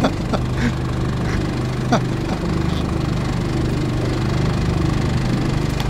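Boat's outboard motor idling steadily, a low even hum, with a light click about two seconds in.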